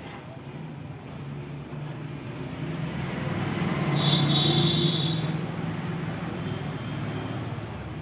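A motor vehicle passing by: a low engine rumble that swells, is loudest around the middle, then fades, with a brief high squeal at its loudest.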